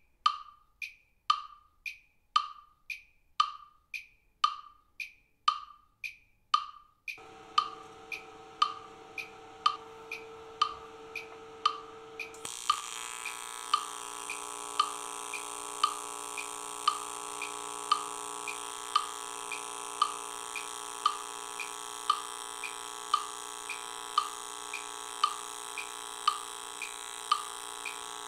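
Metronome app clicking at 115 beats per minute, a sharp tick about every half second. About seven seconds in a faint steady hum joins it, and from about twelve seconds in the steady buzz and hiss of an AC TIG welding arc on 2 mm aluminium runs under the clicks.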